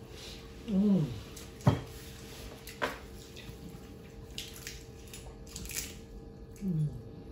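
A metal spoon clinking and scraping on a ceramic plate of jollof rice, with one sharp clink the loudest, and two short falling hums of enjoyment from a diner, about a second in and near the end.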